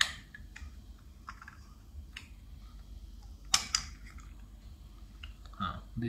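Plastic clicks and snaps from a wireless doorbell's plastic casing being pried open by hand, with scattered small clicks and two sharp snaps close together about three and a half seconds in.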